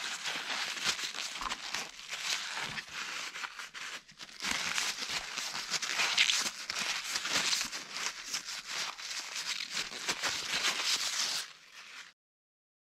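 Paper towel crinkling and rubbing as it wipes spilled clutch fluid off a motorcycle's clutch master cylinder and lever. There is a brief pause about four seconds in, and it stops shortly before the end.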